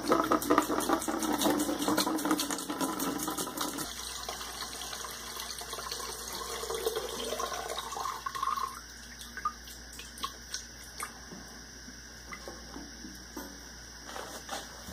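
Mineral spirits poured from a gallon can into a 2.5-gallon bucket: a splashing stream of liquid, heaviest for the first few seconds, then thinning with a rising pitch as it fills, stopping about nine seconds in. A few light clicks follow.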